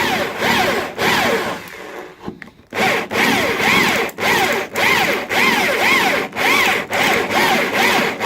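Electric drill with a blunt bit drilling through the steel A panel where it joins the A post, in pulses about two a second, each with a squeal that rises and falls in pitch. There is a short lull about two seconds in. The squealing comes from the worn bit, which the restorer calls knackered and a bit blunt.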